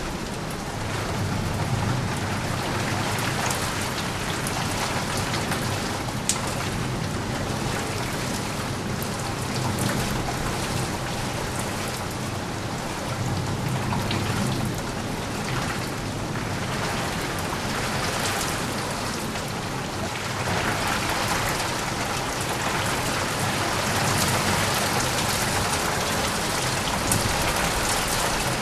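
Steady heavy rain falling, a dense hiss with scattered drop ticks, and a low rumble of distant thunder that swells and fades several times.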